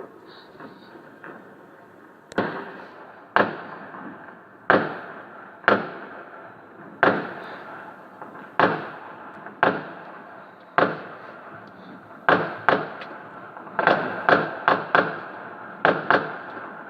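Firework explosions: single sharp bangs about once a second, each with a short echoing tail, quickening into a rapid volley near the end.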